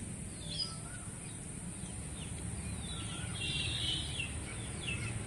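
Small birds chirping: short falling calls scattered throughout, with a brief burst of rapid twittering about three and a half seconds in, over a steady low background noise.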